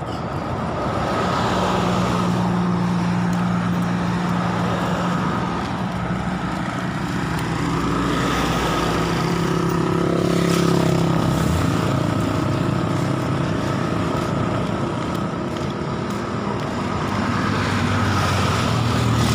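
Road traffic on a highway: cars and motorcycles passing, a steady run of engine and tyre noise with engine hums coming and going.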